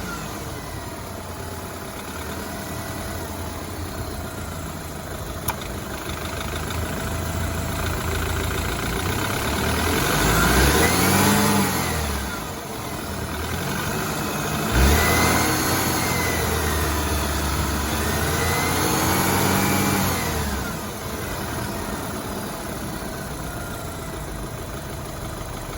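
BMW 328i F30's N26 turbocharged four-cylinder engine idling and revved twice, rising and falling in pitch, with the second rev held for several seconds. The owner reports a knocking noise and whine and suspects a bad timing chain guide.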